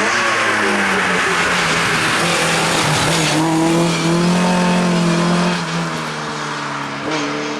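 Rally car engine running hard at high revs as the car passes, its pitch rising and falling, then fading as it moves away in the last couple of seconds.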